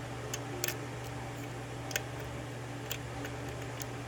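Small, sharp metallic clicks, about five at irregular intervals, from a pick working the pins of a six-pin Yale half euro cylinder during single-pin picking, over a steady low hum.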